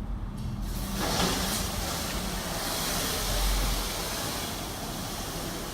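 Water jets of an automatic drive-through car wash spraying the car, a steady hiss that comes in about a second in, heard from inside the car.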